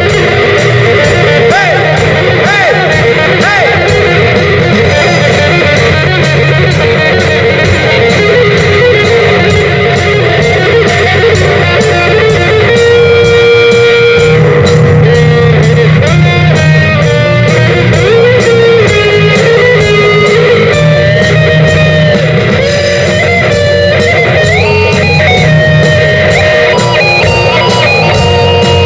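Live rock band playing loud through a PA: distorted electric guitars over a steady drum beat. About halfway in, a higher melody line with pitch bends comes in on top.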